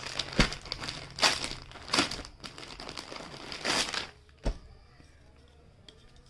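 Plastic bag packaging crinkling in irregular bursts as a sweatshirt is handled and pulled out of its clear plastic wrapper, with a couple of sharp knocks; it goes much quieter about four seconds in.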